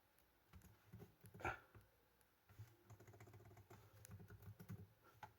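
Faint clicks and light handling noises from hands working with small objects, with one louder short sound about a second and a half in and a run of small rapid ticks in the second half.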